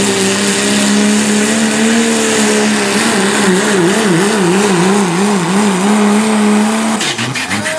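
Pro stock diesel engine of a Dodge pickup pulling truck running at full throttle under the load of a pulling sled. Its pitch holds steady at first, then wavers up and down about twice a second, and about seven seconds in it drops off sharply as the pull ends.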